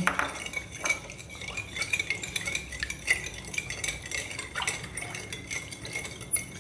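Metal teaspoon stirring sugar into milk in a glass bowl, the spoon clinking and scraping against the glass in a run of irregular clicks.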